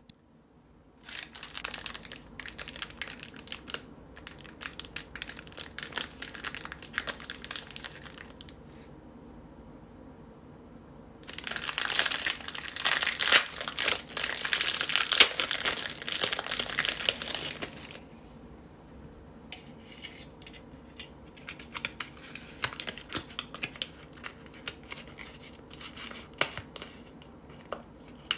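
Clear plastic packaging bag crinkling as it is handled and opened and paper cupcake liners are pulled out of it, loudest for several seconds in the middle. Lighter rustling and small clicks of the paper liners follow.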